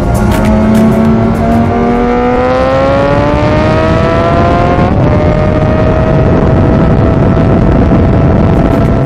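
Suzuki GSX-R600 K8 inline-four engine heard from on board at speed, its pitch climbing steadily under acceleration for about five seconds, dipping slightly, then holding almost level. Heavy wind rush on the microphone runs under it.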